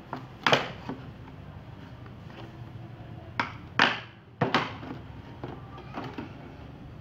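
Large thin-walled plastic water bottle giving a handful of sharp clicks and crackles as it is held, pressed and pierced with a thin metal rod. The loudest come about half a second in and near the middle.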